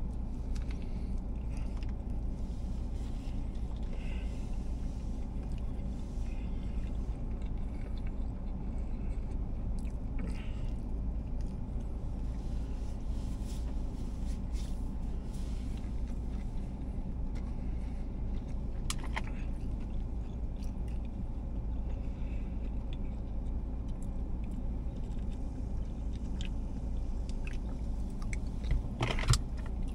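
A man chewing a fried steak biscuit, with faint mouth sounds now and then over a steady low hum in a car's cabin.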